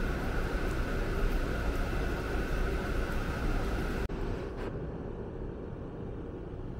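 Steady rumble of a train running. About four seconds in it changes abruptly to a quieter, duller rumble.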